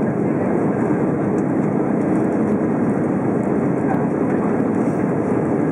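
Steady cabin noise inside an Alitalia Airbus A320 in flight: the engines and the rush of air past the fuselage, heard through the cabin as an even, unbroken sound.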